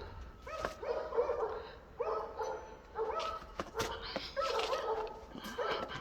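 A dog barking in a rapid series of short, pitched barks and yips.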